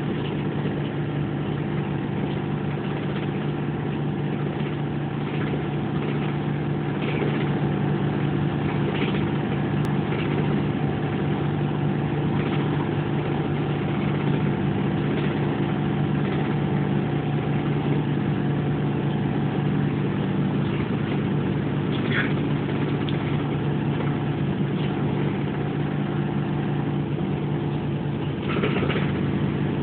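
Inside a moving city bus: the engine's steady low drone and road noise while cruising on a highway, with a few short higher squeaks or rattles.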